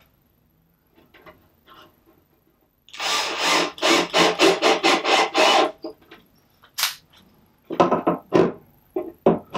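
Cordless drill-driver run in a rapid series of short bursts against a plywood box, then another few bursts near the end.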